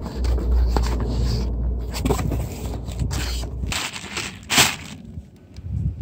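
Cardboard box being opened and its plastic-wrapped contents handled: irregular scraping of cardboard flaps and crinkling plastic, with the loudest rustle about four and a half seconds in. A low rumble underneath stops a little past halfway.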